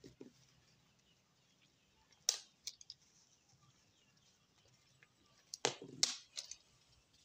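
Disposable diaper crinkling and rustling as it is fitted and fastened on a baby monkey by hand: a few short crinkles about two seconds in, and a louder cluster of them around six seconds.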